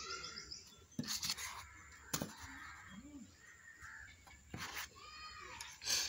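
A few sharp taps and knocks as a compass and a plastic ruler are handled on a notebook page, the loudest near the end. Birds chirp and call in the background.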